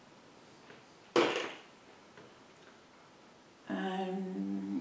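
Quiet room tone with one short, sharp sound about a second in, then near the end a person's steady, held 'hmm'.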